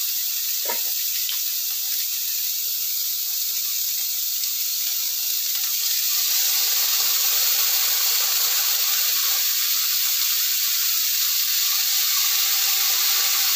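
Green beans and roasted chicken sizzling as they stir-fry in a nonstick wok on a gas burner: a steady frying hiss that grows louder about six seconds in, with one light knock just under a second in.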